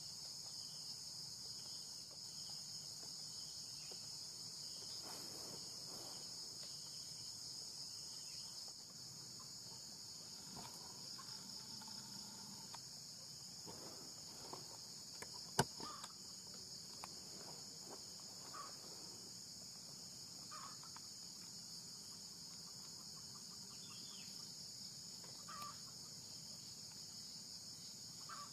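A steady, high-pitched insect chorus, with a single sharp crack a little over halfway through and a few faint short calls in the second half.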